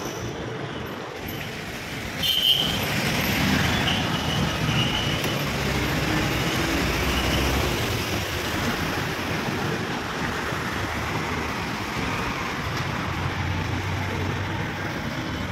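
Street traffic noise, a steady mix of passing vehicles, with a sharp knock about two seconds in.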